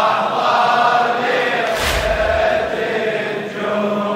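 Men's voices chanting a Shia mourning lament (latmiya) in a sustained, held melody. One loud collective chest-beat lands about two seconds in, part of a slow beat that comes roughly every three seconds.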